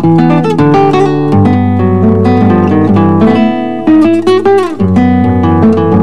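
Seven-string acoustic guitar (violão de sete cordas) playing a choro passage: a plucked melody over deep bass notes, with a few notes sliding down in pitch a little past four seconds in.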